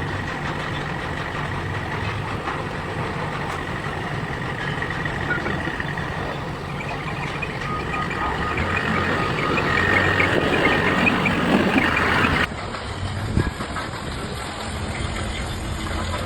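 Heavy vehicle engine running steadily, growing louder about two-thirds of the way through, with an intermittent electronic warning beep over it.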